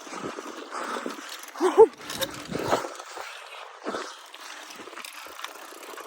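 Bicycle rattling and bumping over a rough dirt track, with a brief pitched sound about two seconds in as the loudest moment.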